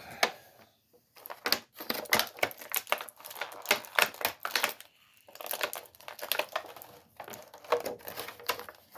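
Plastic toy packaging and an action figure being handled: a run of irregular clicks, taps and crinkles with short pauses.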